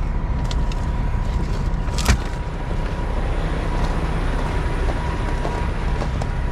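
2018 Freightliner semi truck's diesel engine idling steadily, with a single sharp knock about two seconds in.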